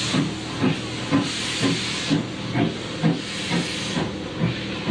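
Steam locomotive chuffing slowly, about two beats a second, with steam hissing in surges.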